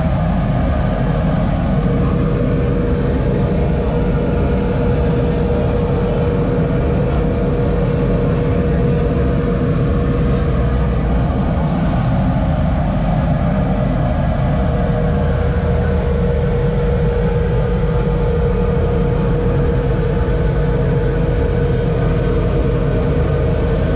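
Steady, loud mechanical rumble with a constant mid-pitched hum, from the ventilation hood's fan over a long arrosticini skewer grill.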